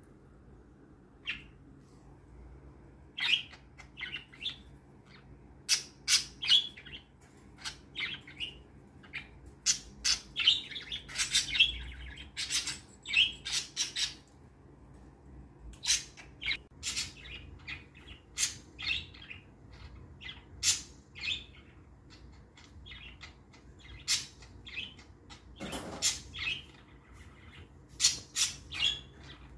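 Pet budgerigars chirping: many short, sharp, high chirps coming in irregular clusters, busiest about halfway through.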